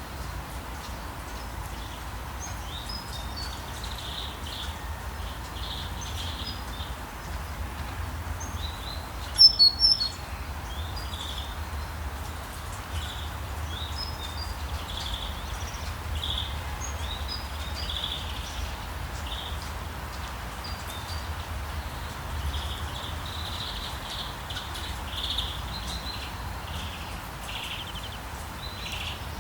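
Outdoor ambience: many small birds chirping over a steady low rumble. About nine and a half seconds in there is a brief, much louder burst of two or three sharp sounds.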